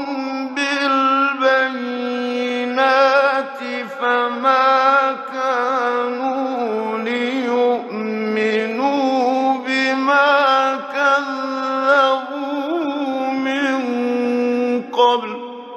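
A male Quran reciter's voice chanting in the slow melodic mujawwad style: long held notes with wavering ornaments that step between pitches. It comes from an old radio broadcast recording.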